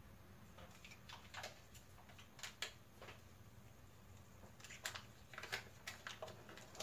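Faint, irregular ticks and pops from an aluminium pot heating on a glass-top electric cooktop, in a cluster over the first few seconds, then a lull, then more again near the end, over a low steady hum.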